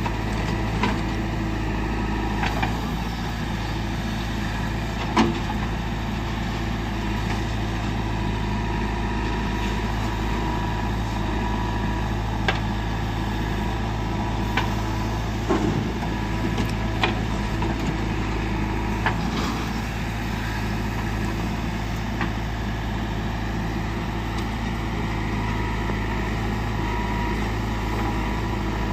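Heavy diesel engine of earthmoving machinery running steadily at an even pitch, with short sharp knocks every few seconds.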